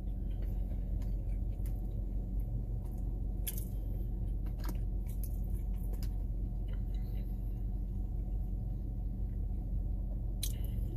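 A person chewing and eating a mouthful of scrambled egg with a plastic fork, with a few sharp clicks, over a steady low rumble inside a car.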